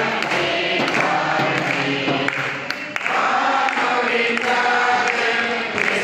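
A men's choir singing a Tamil Christian song together, several voices in unison with held notes.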